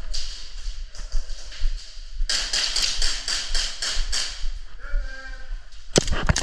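Airsoft guns firing in an exchange of shots: a quick run of sharp cracks, about five a second, then a few louder sharp cracks near the end as two players hit each other.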